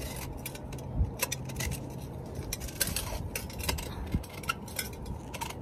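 Handling noise from a phone resting on a lap: scattered small clicks and a few light knocks as it shifts with her movements.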